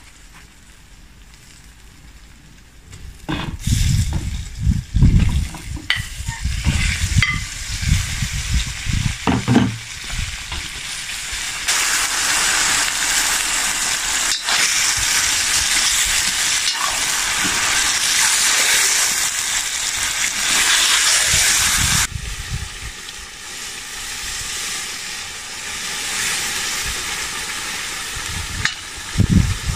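Chicken pieces sizzling in hot fat in a black cast-iron cauldron over a wood fire, stirred with a metal skimmer. The sizzle starts soft with irregular low thumps, turns loud and even for about ten seconds in the middle, then settles to a softer hiss.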